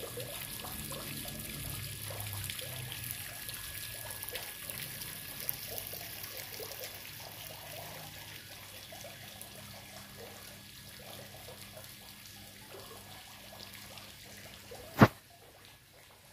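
Water trickling steadily, slowly fading, with a single sharp click about fifteen seconds in.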